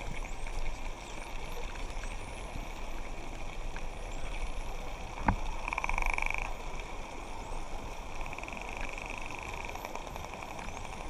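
Hawaiian spinner dolphins calling underwater: a buzzing pulsed call about halfway through and a fainter, longer one later, with faint rising whistles and one sharp click over a steady underwater hiss.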